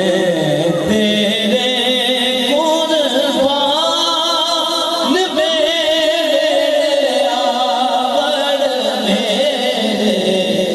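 A man's voice singing a devotional Urdu kalam (naat) in long, wavering held notes with ornamented glides.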